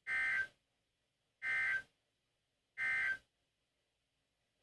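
Three short bursts of NOAA Weather Radio SAME digital data tones, a harsh two-tone warble, each about half a second long and evenly spaced about 1.4 s apart: the end-of-message code that closes an Emergency Alert System broadcast.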